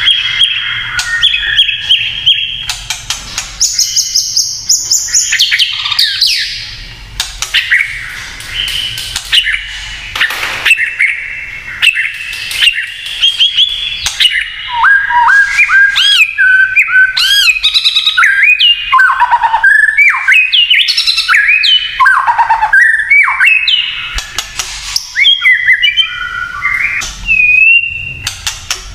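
White-rumped shama (murai batu) singing a long, varied song of clear whistles and quick rising and falling notes, broken up by rapid dry clicking rattles: the shama's 'kretekan' call.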